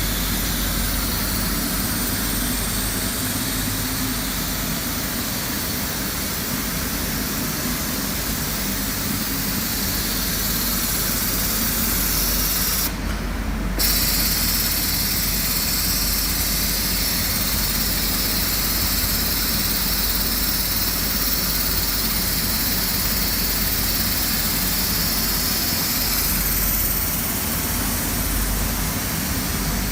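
Quilt edge trimming and taping machine, an industrial overlock sewing machine, running steadily: a continuous mechanical hum and hiss with a brief break in the hiss about 13 seconds in.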